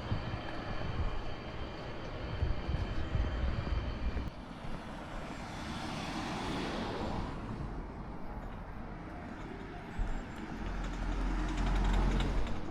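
Outdoor street ambience with a passing vehicle whose noise swells and fades about six seconds in, and a low rumble near the end.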